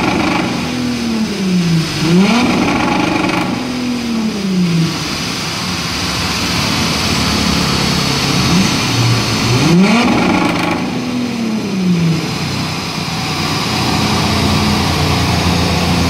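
Remapped Audi A5 3.0 TDI V6 diesel with a Milltek exhaust, blipped twice: each rev climbs quickly in pitch and then falls slowly over about two seconds. It settles to a steady idle in between and near the end.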